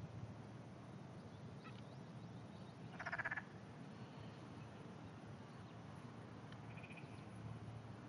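A frog giving a single short, rapidly pulsed croak about three seconds in, followed a few seconds later by a much fainter short call, over a faint low steady hum.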